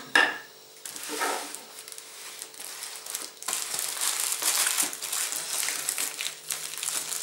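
A sharp knock right at the start, then clear plastic cling-film wrapping crinkling and rustling as hands grab and move the wrapped packages.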